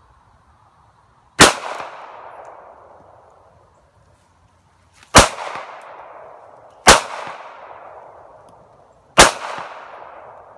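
Four shots from a Smith & Wesson M&P Bodyguard .380 pocket pistol, spaced a few seconds apart, the first about a second and a half in; each sharp crack is followed by a fading echo.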